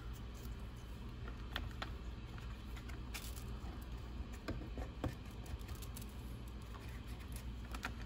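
Small RC car drive-line parts being handled and fitted by hand: scattered light clicks and taps a second or so apart, over a steady low hum.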